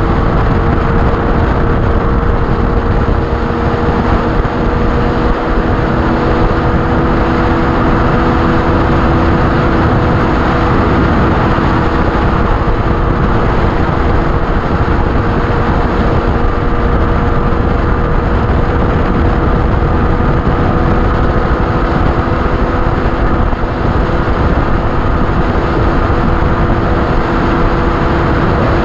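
Yamaha FZ6's inline-four engine running steadily at highway speed, around 150–165 km/h, with its pitch holding nearly level, under continuous wind and road rush on the microphone.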